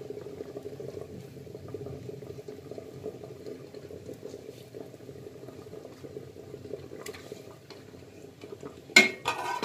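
Water bubbling at a boil in an aluminium pressure cooker, a steady low simmering noise. About nine seconds in there is one sharp knock, louder than the boiling.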